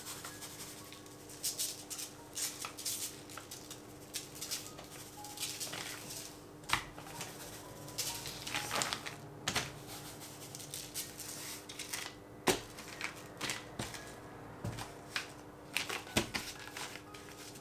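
Kitchen utensils and dishes being handled: irregular clicks, taps and knocks, a few of them sharper, over a faint steady hum.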